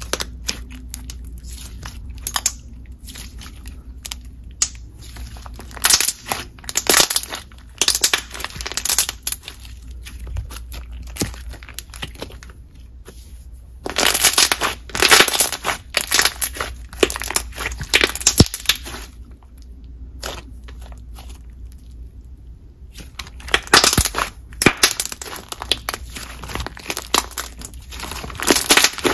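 Thick, glossy slime being squished, folded and stretched by hand, giving clusters of sticky clicks and pops in three spells, quieter in between.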